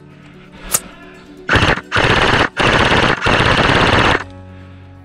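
Airsoft rifle firing four short full-auto bursts in quick succession, after a single sharp click just under a second in.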